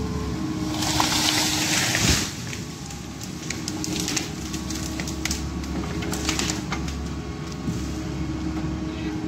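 Excavator engine and hydraulics running steadily under a Westtech Woodcracker C350 felling shear while a cut tree comes down: a loud rushing swish through the branches about a second in, ending in a sharp thud about two seconds in. After it, a scatter of cracks and snaps of breaking branches as the shear handles the felled tree.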